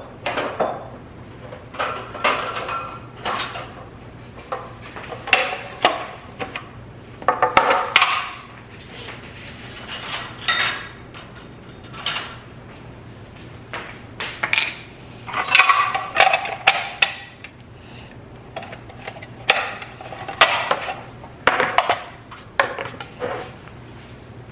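Dishes and kitchenware clinking and knocking at a kitchen sink as they are handled and set down, in irregular clusters of clatter every second or two. A faint, steady low hum runs underneath.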